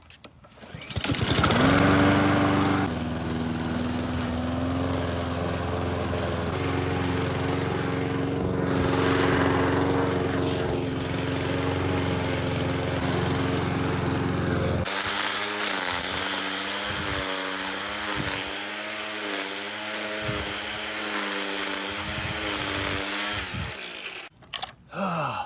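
A small engine starts about a second in and runs at a steady pitch. About midway it changes abruptly to an engine running with a wavering pitch and regular knocks, which stops shortly before the end.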